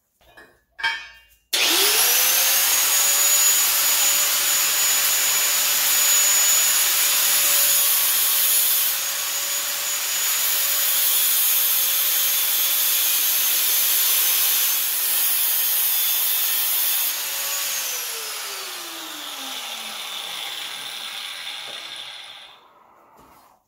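Corded electric angle grinder switched on, spinning up at once to a steady whine as its disc cuts a notch in a metal ECU housing. It is switched off about 17 seconds in and spins down with a falling whine that fades out.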